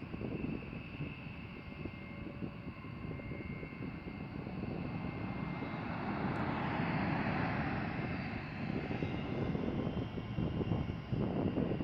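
B-1B Lancer's four turbofan jet engines running as the bomber rolls down the runway: a dense rumble with a thin steady whine above it. The noise swells about halfway through and turns rough and crackling near the end.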